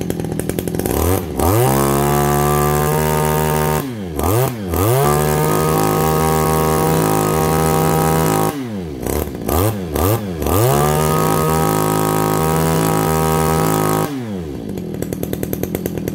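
Stihl 26 cc two-stroke backpack brush cutter engine revved from idle to full throttle three times, each time held high for a few seconds with short throttle blips in between. It drops back to a steady idle near the end.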